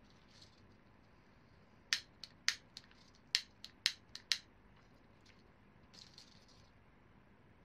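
A quick run of about ten sharp little clicks and taps over two seconds from a briar tobacco pipe being handled with its stem pulled out of the shank. A faint brief scrape follows near the end as a pipe tool works in the bowl.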